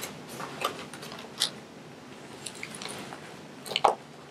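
Padded board splint being handled and positioned against a leg: scattered light knocks and rustles, with a louder thump just before the end as the splint is set down alongside the leg.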